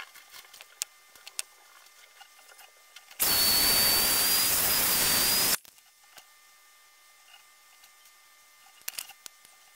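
Handheld hair dryer switched on for about two and a half seconds, then off: a loud, steady rush of air with a high motor whine that creeps slightly upward. Faint handling clicks and rustles come before and after it.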